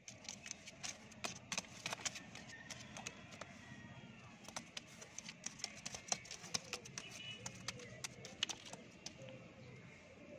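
Domestic high flyer pigeons cooing, with low repeated coos in the second half, over many sharp, irregular clicks and taps.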